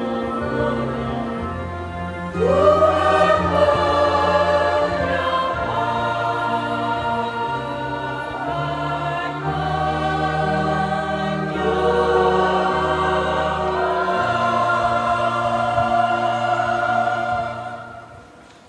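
Mixed choir of women's and men's voices singing a sacred song in parts, over sustained low accompanying notes. The singing stops near the end.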